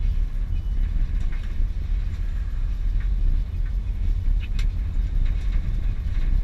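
Car driving, heard from inside the cabin: a steady low rumble of road and engine noise, with a few faint clicks or rattles.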